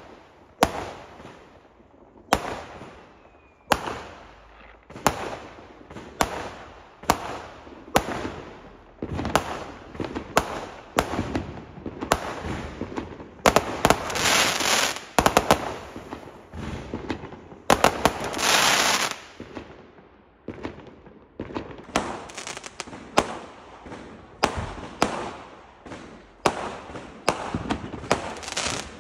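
Fireworks going off in a continuous barrage: sharp bangs about once a second, each trailing away in an echo, with two longer stretches of dense crackling in the middle.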